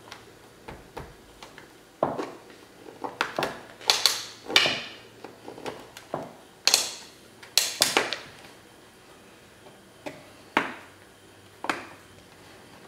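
Pocket screwdriver prying at the plastic clips behind a car door trim panel: a string of sharp plastic clicks and snaps with short scrapes, the loudest clusters about four and eight seconds in.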